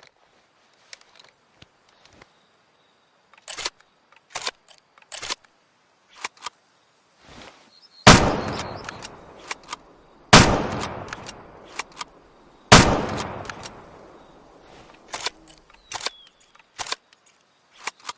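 Remington Model 700 bolt-action rifle: a series of sharp mechanical clicks and clacks, then three loud shots about two seconds apart, each followed by a rolling echo that dies away, then more clicks.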